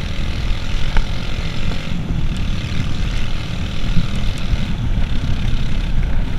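Suzuki Intruder 125 motorcycle's single-cylinder engine running steadily as the bike rides off from a green light, heard from the rider's seat.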